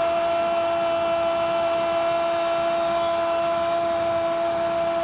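A television football commentator holding one long, unbroken 'goooool' shout at a steady pitch to celebrate a goal, over the noise of the stadium crowd.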